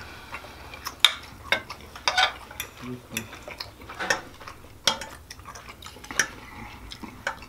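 Metal knives and forks clinking and scraping against plates as steak is cut, in irregular sharp clicks and short scrapes.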